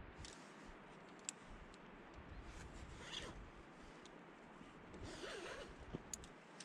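Climbing rope running through a belay device in two short zipping pulls as rope is paid out to the leader, with a couple of light metallic clinks from the carabiners.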